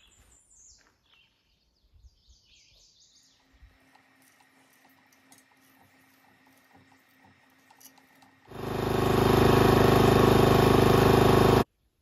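Small gasoline engine, like that of the log splitter being converted to a forging press, running at a steady speed for about three seconds, then cut off suddenly. Before it, only faint scattered sounds.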